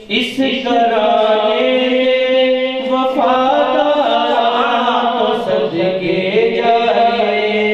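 A man singing a devotional Punjabi naat solo into a microphone, his voice gliding through long, ornamented phrases over a steady held tone.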